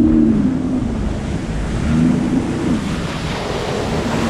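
Sea-Doo Fish Pro personal watercraft under way, its engine note dropping about half a second in, rising briefly around two seconds and falling away again. Rushing water and spray from the hull and wind buffeting the microphone fill the rest.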